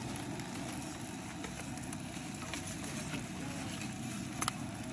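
Campfire crackling with scattered faint pops and one sharp pop about four and a half seconds in, over a low steady rumble.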